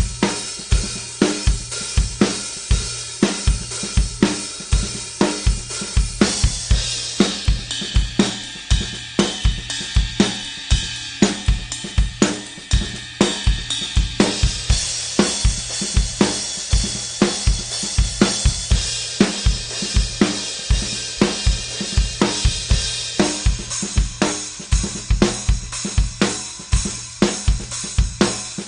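Handmade B25 bronze cymbals played in a steady drum-kit beat over kick and snare. The cymbal wash grows brighter and fuller about seven seconds in and again about halfway through.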